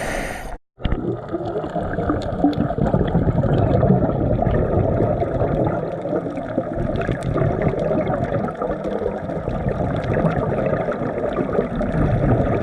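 Water splashing and sloshing, a steady churning wash with many small crackling splashes, broken by a brief dropout just under a second in.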